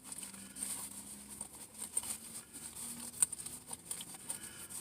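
Faint handling noise of a small pouch holding cord and tie-down straps: a scatter of light clicks and rustles.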